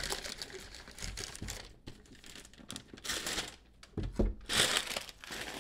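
Gift wrapping paper being torn open and crumpled by hand, in several bursts of crinkling and tearing, with a couple of low thumps about four seconds in.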